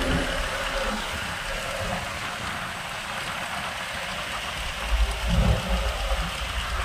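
Road noise inside a moving truck's cab: a steady rushing hiss with a low engine rumble underneath, and a few heavy low thumps about five seconds in.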